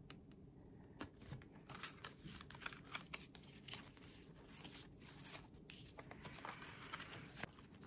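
Faint rustling and light taps of paper greeting cards being handled, turned over and set down on a pile of paper goods, in scattered short clicks.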